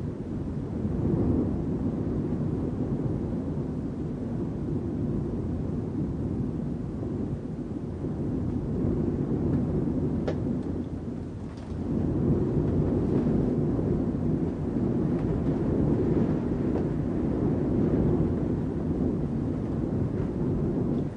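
Wind heard from inside a building: a steady, low rushing noise that swells and eases, dropping off briefly just past the middle before picking up again.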